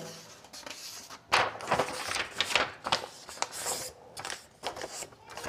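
Sheets of paper being slid and handled, rustling and scraping in a string of irregular short strokes.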